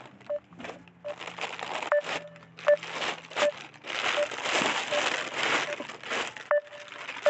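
Clear plastic wrapping crinkling and rustling as a parcel's plastic cover is handled and pulled open, loudest about halfway through. Short beeps repeat about every three-quarters of a second, the phone's outgoing call tone.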